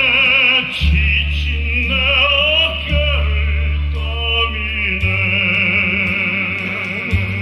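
Music: a melody sung or played with heavy vibrato over held low bass notes that change every second or two.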